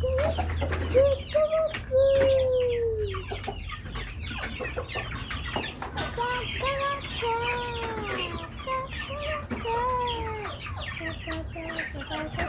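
Chickens clucking and calling: several drawn-out calls that rise and fall in pitch, then a run of short, quick clucks near the end.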